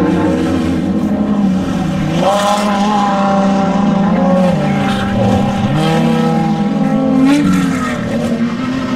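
Off-road desert race vehicle engine running at high revs and accelerating. Its pitch climbs about two seconds in, falls away near the middle, then climbs again.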